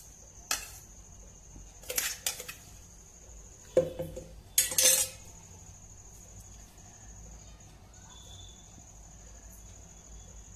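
Clinks and scrapes of a stainless steel mixer-grinder jar being tapped and scraped out over a glass bowl, about four clatters in the first five seconds, the loudest near the middle.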